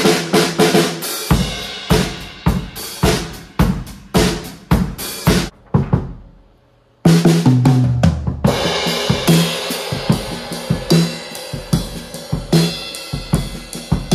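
Drum kit being played: a steady beat of kick and snare for about five seconds, a brief stop, then a fill running down the toms from high to low into a busier beat with the cymbals washing.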